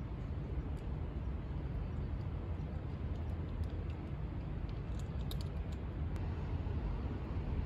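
Steady low outdoor rumble of background noise, with a few faint light clicks about five seconds in.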